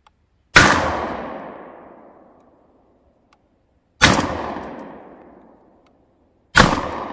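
Three shots from an ATI Bulldog 12-gauge bullpup semi-automatic shotgun: a slug about half a second in, buckshot about three and a half seconds later, and birdshot near the end. Each shot is a sharp, very loud crack that rings out in an echo dying away over about two seconds.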